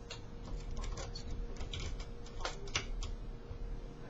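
Light, irregular metallic clicks and scrapes of a lock pick and tension wrench working the pins inside a solid brass Chubb Lips five-pin padlock.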